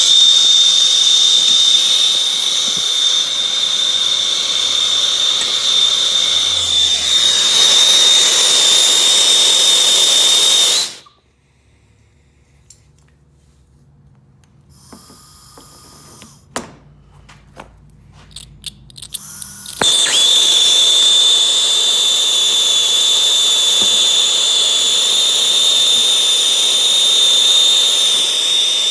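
Gas torch burning with a steady hiss and a high whistle. It cuts off suddenly about eleven seconds in; a few clicks follow in the quiet, and it comes back on about twenty seconds in.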